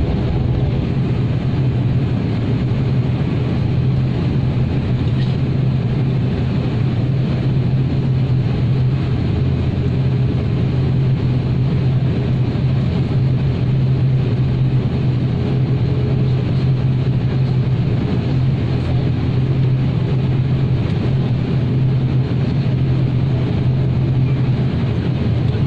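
Steady drone of a turboprop airliner's propellers and engines, heard inside the cabin: a constant low hum over a broad, even rumble.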